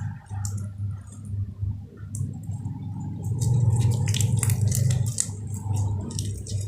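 Slime being squished and worked by hand: wet, sticky squelches with crackling little pops that come thicker and faster about halfway through.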